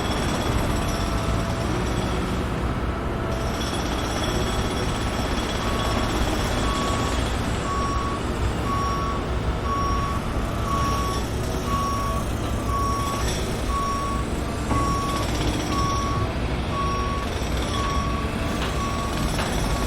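A heavy truck's engine running steadily at a construction site, with its reversing alarm beeping about once a second from partway through.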